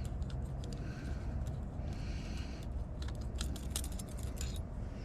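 Small metal lock parts of a deadbolt clicking and clinking as they are handled, in scattered taps that bunch together about three seconds in, over a steady low hum.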